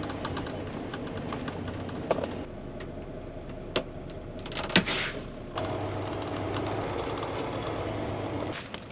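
A vehicle engine running steadily, with a few sharp clicks or knocks. About halfway through, a steadier low hum comes in.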